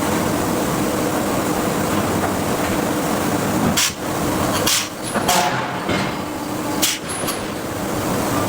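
Steady machinery noise of a hydraulic forging hammer, with four sharp, irregularly spaced blows in the middle as the hammer strikes the steel.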